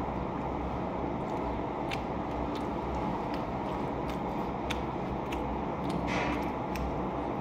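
A person chewing and crunching food eaten by hand, biting into raw green chillies, with small wet mouth clicks and one louder crunch about six seconds in, over a steady low background hum.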